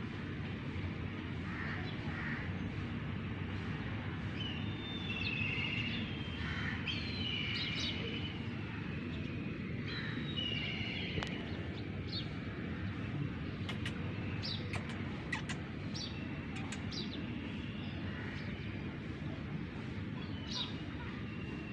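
Small birds chirping in short calls, thickest in the first half, over a steady low background rumble, with a few sharp ticks later on.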